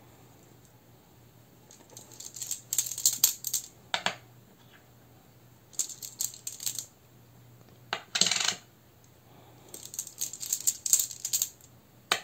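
Small stone rune tiles rattling and clicking against each other as a hand rummages in a cloth pouch, in three bouts of rapid clicking. A single sharper clack comes about four seconds in and a longer rattle about eight seconds in.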